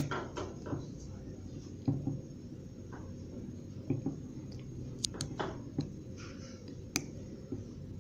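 Scattered light metal clicks and knocks of snap ring pliers working the snap ring off an AC compressor's pulley, with two sharp clicks close together about five seconds in and another about seven seconds in.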